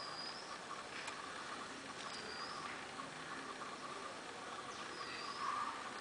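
Garden ambience: a short, high bird call repeated three times, a few seconds apart, over a steady insect chirring.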